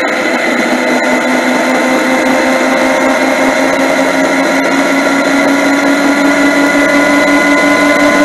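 Yamaha MT-09's three-cylinder engine running steadily under way, its pitch rising slowly as the motorcycle gathers speed, over a steady hiss of wind and road noise.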